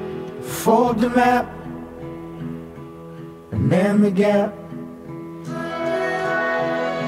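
Background music: a guitar-backed song with held chords, and two short sliding vocal phrases about half a second in and again about three and a half seconds in.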